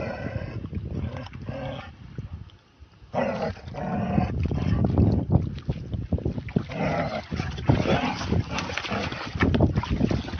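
Central Asian Shepherd dog (Alabai) barking repeatedly, with water sloshing around the tiger in the pond.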